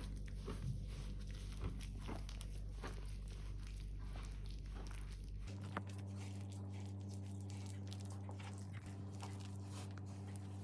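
Faint scattered knocks and clicks of handling over a steady low electrical hum; the hum changes abruptly about halfway through.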